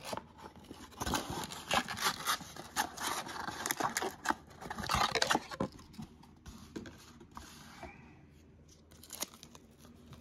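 Cardboard box and loose trading cards being handled: a busy run of scraping, rustling and tapping for about the first six seconds, then only a few scattered taps.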